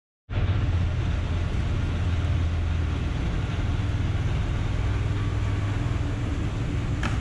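Steady low hum with a rushing hiss from a live-bait tank's circulating pump and water flow, starting abruptly.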